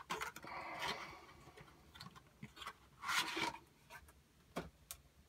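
Hands handling packaging: the charger brick slides out of its small cardboard box with soft rustling in the first second and again about three seconds in, followed by a few light clicks and knocks near the end.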